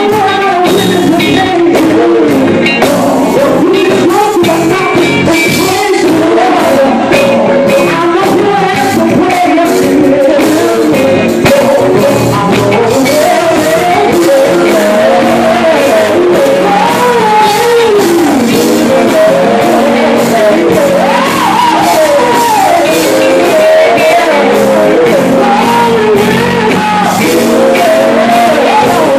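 Live male gospel group singing, lead and backing voices into microphones, over amplified electric guitar, bass and drums. Loud and steady throughout, with a busy beat from the drum kit.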